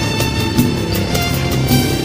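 Background music with a steady beat and a sustained melody line.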